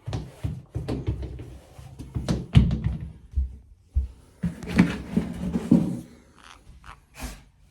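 A series of irregular knocks and thumps, some sharp, with short rustling stretches in between, loudest around the middle.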